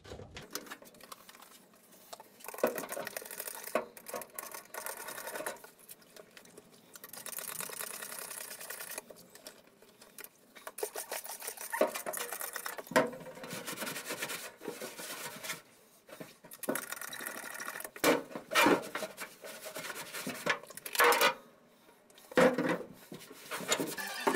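A hand trigger spray bottle squirting thinner onto the bare sheet-steel cab floor in many short, irregular hissing bursts, with some rubbing on the metal between them.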